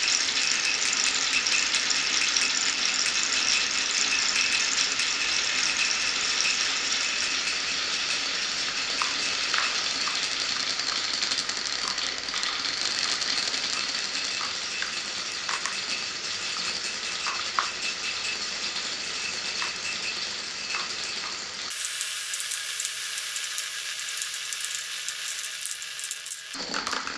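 Many glass marbles rolling and rattling along wooden marble-run tracks in a dense, continuous clatter with a few sharper clicks, slowly getting quieter. About 22 seconds in, the sound changes abruptly to a brighter rattle.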